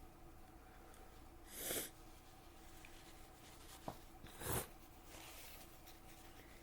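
A person sneezing twice, two short bursts about three seconds apart, with a small click just before the second.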